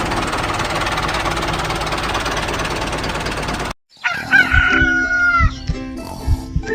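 A small engine running with a dense, fast rattle that cuts off abruptly a little over halfway through. A rooster then crows once, and music with a steady beat starts near the end.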